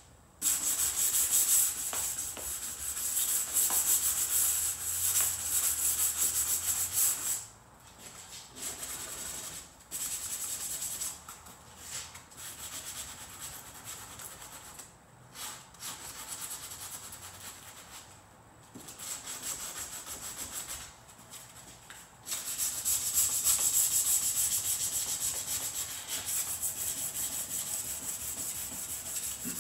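Hand sanding with 220-grit sandpaper on a foam sanding block, rubbed back and forth around the tailgate's window frame to scuff it so pinch weld primer will stick. It comes in spells with short pauses, and is loudest in the first seven seconds and again near the end.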